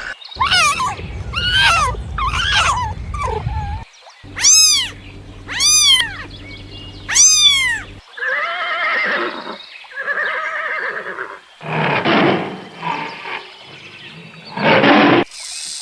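A sequence of different animal calls cut together. First come several rising-and-falling pitched calls, then three high arching cries about a second and a half apart. After those come lower pitched calls, and finally two harsh, roaring calls.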